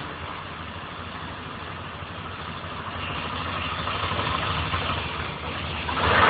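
Motorcycle engine idling steadily, getting a little louder a few seconds in, with a sudden loud rush of noise near the end.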